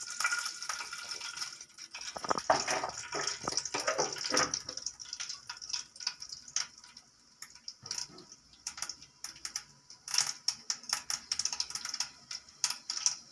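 Mustard seeds and urad dal spluttering in hot oil in a steel kadai: irregular sharp pops and crackles over a steady sizzle, thinning out about halfway through and then picking up again.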